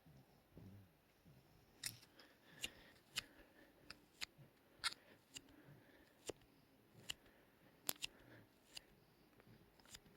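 A sleeping puppy snoring softly in the first second or so, then a string of irregular sharp clicks, about one or two a second, over a quiet background.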